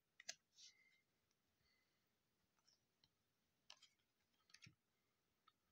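Faint, scattered clicks and light rustles of baseball trading cards being handled.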